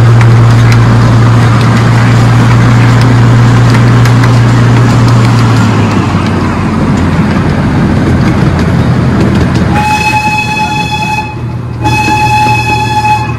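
Miniature park train riding along with a steady low engine hum and rumbling ride noise, then its horn sounds two long toots, the first about ten seconds in and the second just after it, each lasting over a second.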